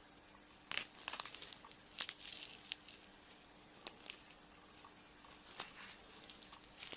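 Chocolate-egg wrapper being crinkled and torn open by hand, in short crackling bursts with sharp clicks: a burst about a second in, another at about two seconds, a couple of clicks near four seconds, and softer crinkling near the end.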